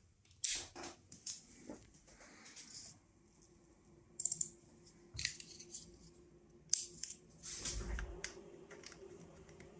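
Scattered sharp clicks and handling noises as a rocker switch on a CNC control box is flipped and a USB cable is pushed into a laptop. A faint steady hum comes in about three seconds in.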